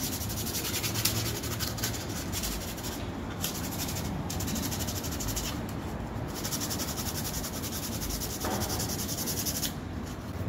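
A hardened liquid-plastic repair patch on a broken plastic part being rasped down by hand: a dry, scratchy rasping in long runs broken by short pauses, easing off near the end, as the repair is smoothed.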